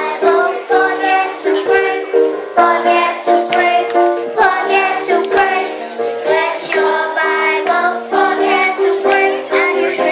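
Young children singing a song together over an accompaniment of steady held chords.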